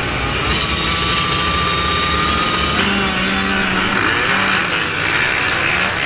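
A pack of motocross dirt bikes accelerating hard off the starting gate at full throttle, the rider's own bike loudest. Its engine note climbs, then drops to a lower pitch about three seconds in, as at an upshift.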